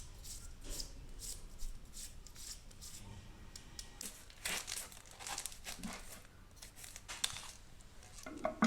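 Wrapping being torn and crumpled off a moo yor (Vietnamese pork sausage wrapped in banana leaf), in short crackling rustles that come thickest about halfway through.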